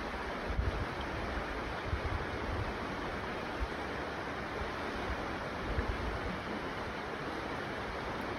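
Steady rush of a shallow river running over rocks, an even hiss with no letup, with a few low bumps close to the microphone.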